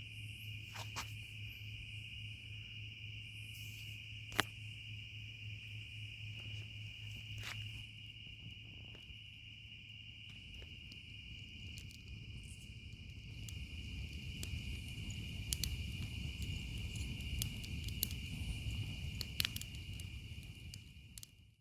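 A steady chorus of crickets, one continuous high trill, with scattered sharp clicks and cracks over it. From about two-thirds of the way in, a low rushing noise grows underneath; the sound cuts off suddenly at the end.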